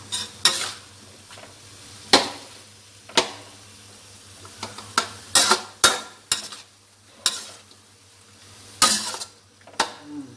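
Lotus stems being stir-fried in a pan, sizzling, with a spatula scraping and clattering against the pan in irregular strokes about once a second.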